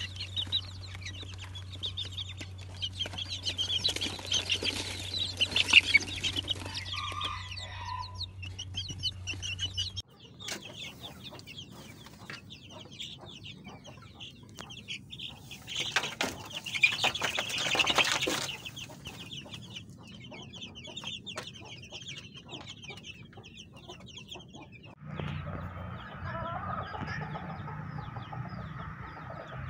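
Chicks peeping, many quick high chirps at once, in several clips cut together, with a steady low hum under the first part. Near the end, a hen clucks over a low hum.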